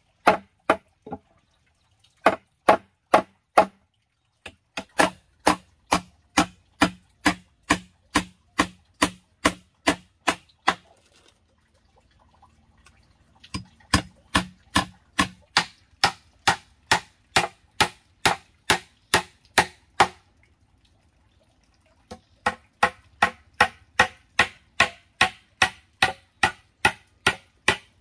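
Hammer driving steel nails into a wooden plank, sharp strikes at about two a second in several runs, with short pauses between nails.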